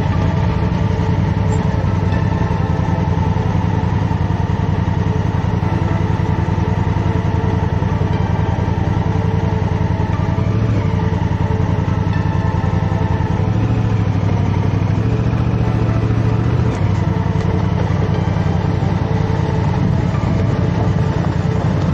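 Large adventure motorcycle engine running steadily while the bike is ridden, with only slight changes in engine note.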